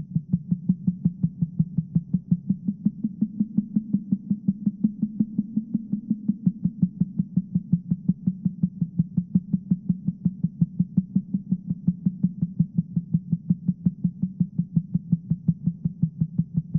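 A low, steady throbbing hum that pulses evenly, roughly four throbs a second.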